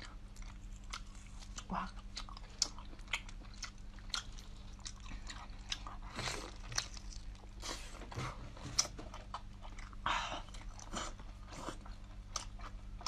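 Close mouth sounds of biting into and chewing a whole spicy cooked octopus: irregular wet clicks and smacks, with two longer noisy smears about six and ten seconds in.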